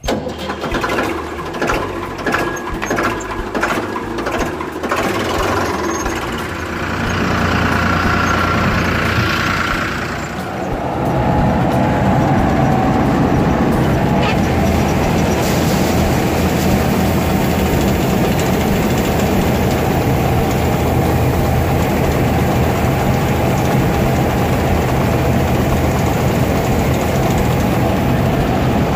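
A Ford 3600 tractor's engine running as the tractor drives off, with a regular knocking over it. From about 11 seconds in, a louder steady machine sound takes over: the combine harvester's engine and unloading auger pouring harvested paddy into the tractor trolley.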